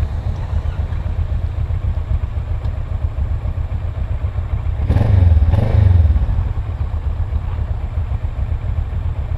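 Motorcycle engine idling with a steady low throb, and a louder surge of engine noise for about a second, about five seconds in.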